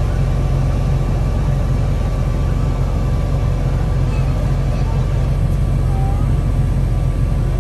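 Steady low drone of heavy diesel machinery, the tractor pulling the chaser bin and the combine harvester running beside it, heard from inside the tractor cab while the combine's unloading auger pours grain into the bin. A faint steady whine sits above the drone.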